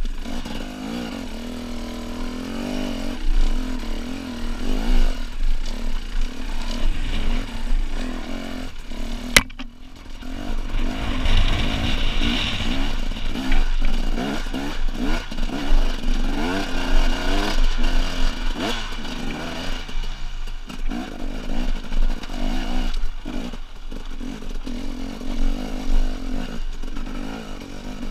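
Husqvarna TE250 enduro motorcycle engine revving up and down under load on a steep, rocky climb, the pitch rising and falling with each throttle change. Rattling from the bike over rocks runs through it, with a sharp click about nine seconds in and a brief dip in engine note just after.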